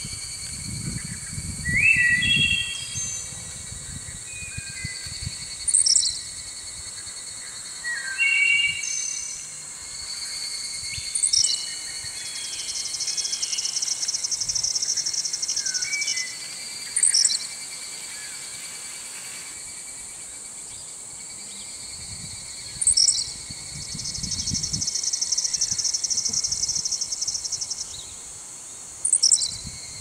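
Tropical outdoor ambience: small birds chirping and whistling over a steady high insect drone. A short, sharp rising chirp comes back about every six seconds, and two stretches of rapid insect buzzing last a few seconds each.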